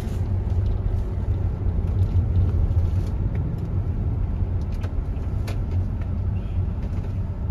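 Steady low rumble of a Toyota van's engine and road noise, heard from inside the cabin while driving, with a few faint clicks about five seconds in.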